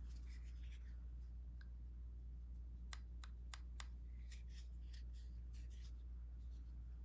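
Light handling of a Rough Rider slip-joint pocket knife: four sharp little clicks about three seconds in, then soft ticks and rubbing, over a steady low hum.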